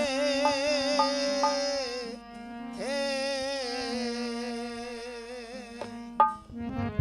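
Devotional bhajan music: two long held melodic notes, each with a wavering vibrato and a gap of about half a second between them, over a steady drone. A few light percussion strokes fall in the first couple of seconds, and there is a sharp click near the end.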